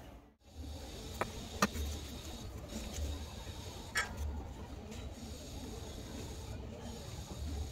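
Handling noise while soldering a wire to a small speaker's terminal: three short sharp clicks in the first half, over steady hiss and an on-and-off low rumble.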